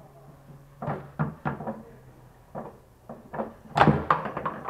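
Foosball being played on a Mascher table: the ball, rods and figures clacking and knocking against each other and the wooden walls in a series of sharp hits. The loudest, sharpest hit comes near the end, followed by a quick run of smaller clacks.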